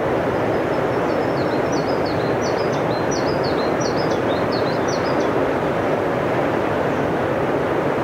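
Fast mountain river at high water running over rocks and rapids: a loud, steady rush of water. Over it, a small songbird sings a quick run of short, high, repeated notes that stops about five seconds in.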